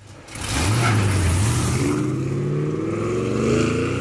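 Ford 7.3 L Godzilla gasoline V8, swapped into a Mustang with a 5-speed manual, pulling away under throttle. The engine comes in about half a second in and its note climbs steadily as the car accelerates.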